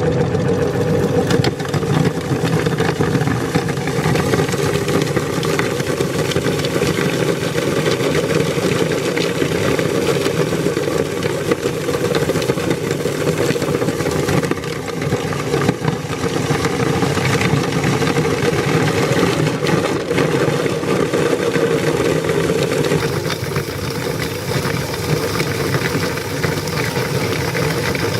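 Electric meat grinder running steadily under load as it grinds coloured beads, its motor hum overlaid with a continuous crackle of small clicks.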